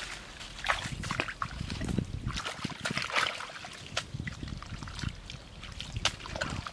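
Hands splashing and scooping in shallow, muddy water at a bank's edge: irregular small splashes and trickles.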